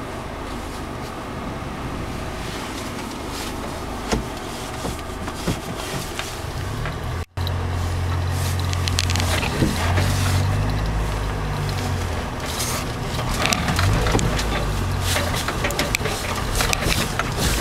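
Cabin noise of a Mercedes G-Class (Steyr-Puch) off-roader: engine running while it drives over rough rocky ground, with frequent short knocks and rattles. A brief break comes about seven seconds in, after which a heavier low rumble sets in.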